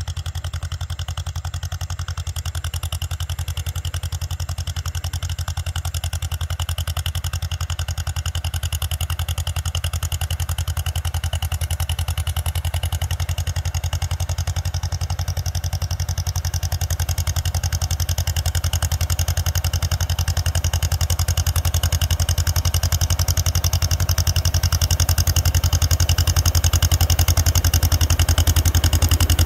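Vintage John Deere two-cylinder tractor engine running under load while pulling a plough, with an even, rapid pulse. It gets gradually louder as the tractor approaches.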